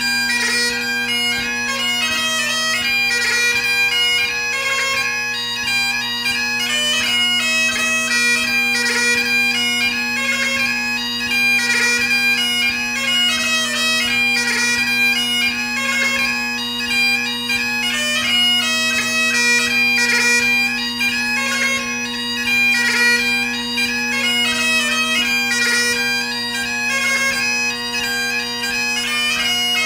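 Great Highland bagpipe played solo: the steady drones sound under the chanter's melody of quick, changing notes, in a light-music (ceol beag) competition set.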